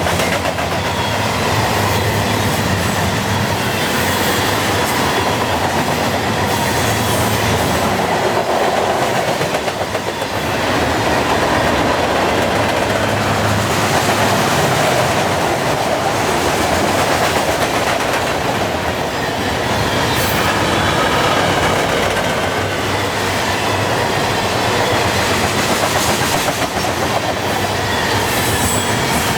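A long CN freight train's cars rolling past at speed: a steady, loud rumble with the clickety-clack of wheels over the rails and faint wheel squeal at times.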